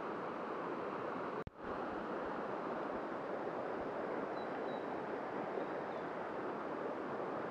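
Steady rushing of a fast-flowing river running over riffles, with a brief dropout about a second and a half in.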